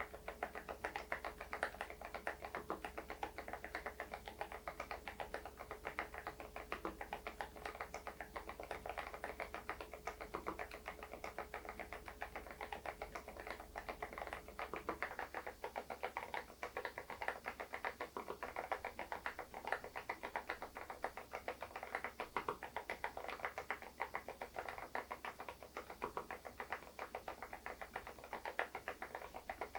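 Continuous typing on an SPM PL108W full-size keyboard fitted with stock, unlubricated Moksae low-noise switches: a dense, unbroken run of soft keystrokes.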